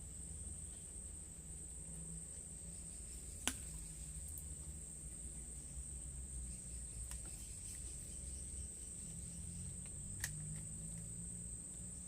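Insects in the riverside vegetation giving a steady, high-pitched buzz, with a low rumble underneath. Two sharp clicks stand out, a loud one about three and a half seconds in and a softer one about ten seconds in.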